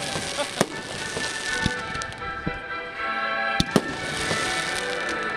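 Firework shells bursting in the sky, several separate sharp bangs with a quick pair of louder ones a little past halfway, over music playing throughout.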